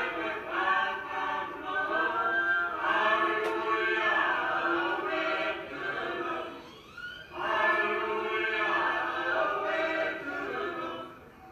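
A choir singing a hymn in several voices, unaccompanied, in long phrases with one short breath about two-thirds of the way through, then stopping near the end.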